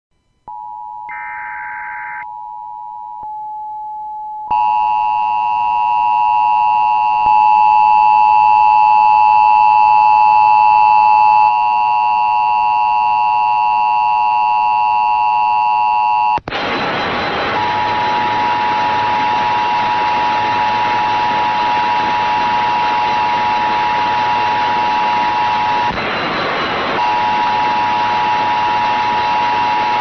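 Emergency Alert System attention signal announcing a tornado warning, coming over an internet radio relay stream: a steady two-tone alarm. More tones are layered on from about four seconds in, and a hiss of noise joins from about sixteen seconds in.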